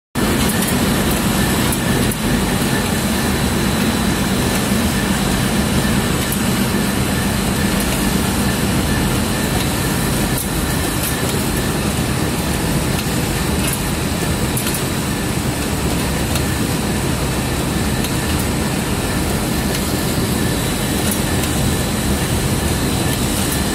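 CNC double-disc surface grinder running steadily while grinding knife blades: a loud, even machine noise with a steady hum and a few faint clicks.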